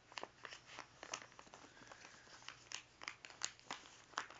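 A sheet of paper being folded and creased by hand: irregular crinkles and small crackles.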